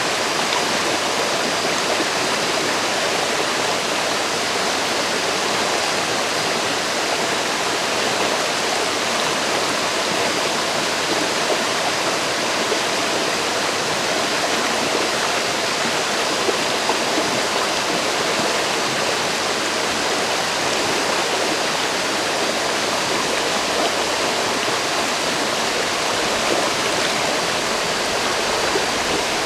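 A river flowing steadily, making a continuous even rush of water with no breaks.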